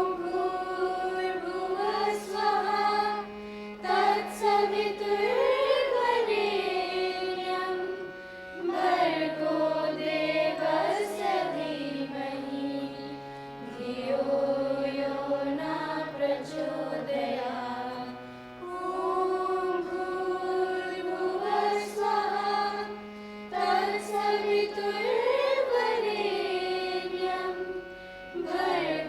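Carnatic-style singing: an ornamented melody with gliding notes, sung in phrases a few seconds long with brief dips between them, over sustained accompanying notes that step to a new pitch every few seconds.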